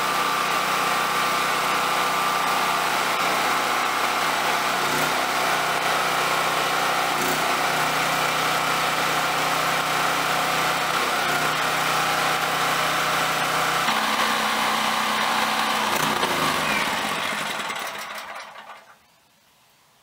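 FIRMAN H03652 dual fuel portable generator running steadily on propane while powering a portable radiant heater. The engine sound dies away about three seconds before the end.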